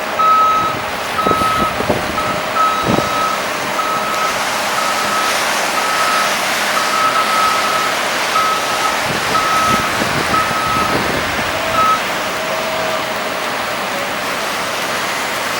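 Truck reversing alarm beeping about once a second, stopping about twelve seconds in, over steady engine and road noise with a few knocks near the start.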